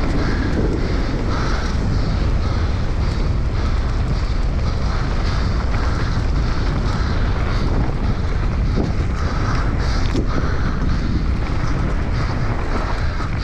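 Heavy wind buffeting on the microphone of a mountain bike descending a dirt trail at race speed, over a steady rumble of tyres and bike. A few sharp knocks come from the bike over rough ground about two-thirds of the way through.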